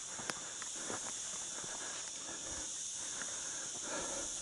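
Quiet outdoor background: a steady high hiss with a few faint clicks and rustles.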